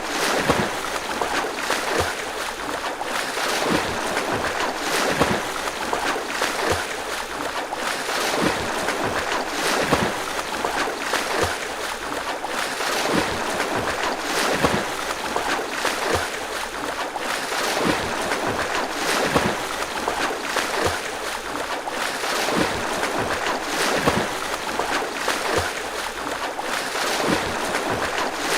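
Rough sea waves and wind in a continuous loud rush, broken by frequent irregular short thumps or buffets.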